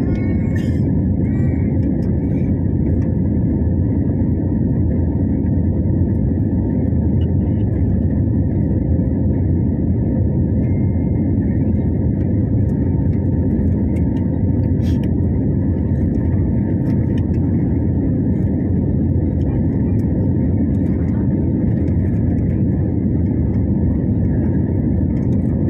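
Steady low roar of an Airbus A320-family jet's engines and airflow heard inside the passenger cabin on final approach to landing, with a faint steady hum under it.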